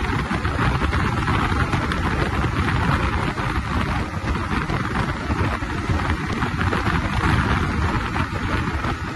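Steady rush of wind buffeting the microphone of a motorcycle ridden at about 106 km/h, a dense hiss that fluctuates in loudness, with no engine note standing out.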